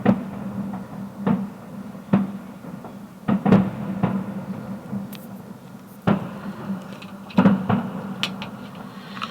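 Fireworks shells bursting overhead: about seven sharp booms at uneven spacing, a few followed by brief crackling.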